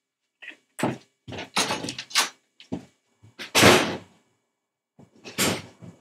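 A door being handled and opened: a run of short clunks and rustles, the loudest about three and a half seconds in.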